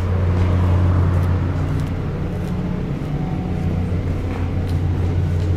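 A steady low mechanical hum, unbroken and even in pitch, like an engine running at idle.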